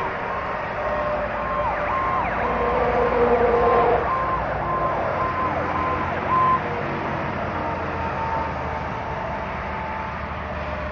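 Emergency vehicle siren sounding in short repeating cycles over steady highway traffic noise, dropping away about six seconds in.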